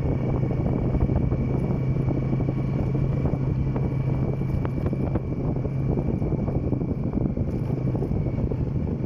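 Motorcycle engine running at a steady cruise with a constant hum, and wind buffeting the microphone as it rides.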